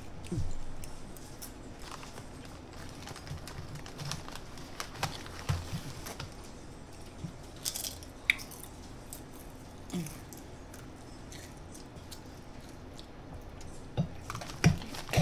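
Eating sounds: quiet chewing with scattered small clicks and mouth noises, a little louder about a second in and again near the end.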